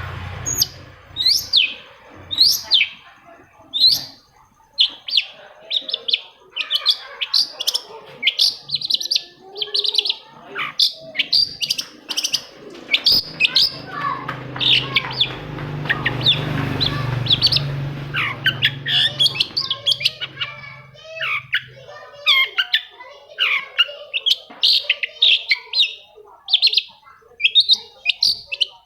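Long-tailed shrike singing a fast, chattering run of short, sharp chirps and calls, several a second. A low hum sits underneath for several seconds in the middle.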